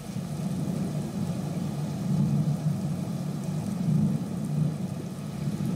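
Storm sound effect: a low rolling rumble that swells and eases every couple of seconds.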